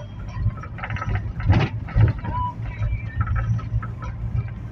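Low, steady road and engine rumble heard from inside a moving car's cabin, with two sharp knocks about one and a half and two seconds in, and lighter clicks and rattles between.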